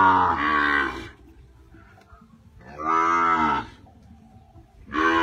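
Young cattle mooing: three calls, each about a second long and roughly two seconds apart. The first is already sounding at the start, and the last runs on past the end.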